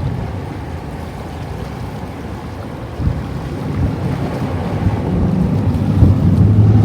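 Distant fireworks going off as dull booms, two of them about three seconds apart, over a steady rumble of wind on the microphone; a low steady hum grows louder near the end.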